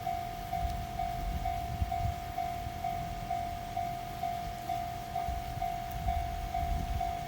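Japanese railway level crossing's electronic warning bell ringing, one repeated ding a little over twice a second, over the low rumble of a passing train.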